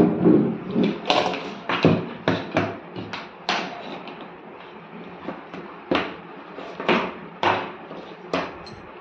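Objects being moved about on a wooden desk by hand: a string of knocks and clatters as cables, a computer mouse and headphones are picked up and set down, with cable rustling in between. The knocks come thick and fast for the first few seconds, then thin out to a few separate knocks.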